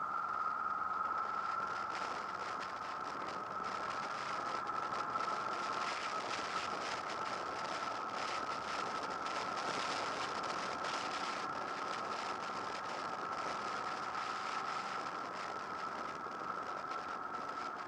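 Honda VFR800 VTEC's V4 engine running at a steady, moderate pace while ridden, mixed with wind and road noise on the bike-mounted camera. A constant thin high tone runs under it.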